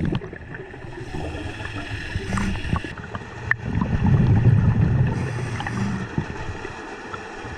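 Scuba diver breathing through a regulator underwater: a hiss of inhaled air alternating with a low bubbling rumble of exhaled air.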